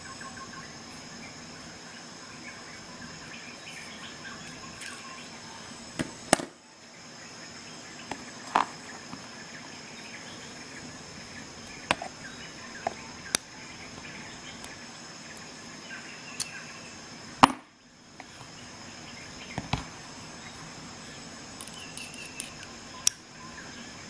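Irregular sharp clicks and clacks of small metal hand tools being handled: driver bits, a bit holder, a ratchet and an extender knocked and fitted together. Two knocks stand out louder, one about a quarter of the way in and one about two-thirds in, over a steady high-pitched background whine.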